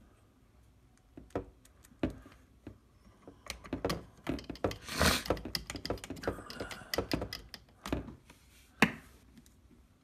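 Irregular clicks, taps and short scrapes of hands fitting screws into the plastic shell of a DJI Phantom 4 drone, busiest in the middle, with one sharp click near the end.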